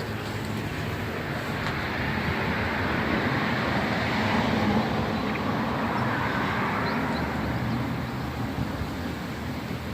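A passing vehicle: road noise swelling to a peak about halfway through, then fading away.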